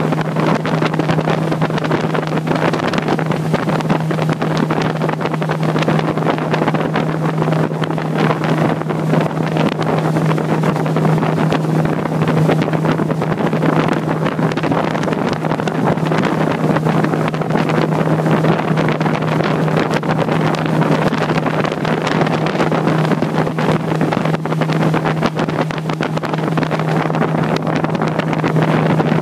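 Motorboat engine running steadily under way, a constant low hum, with wind noise on the microphone over it.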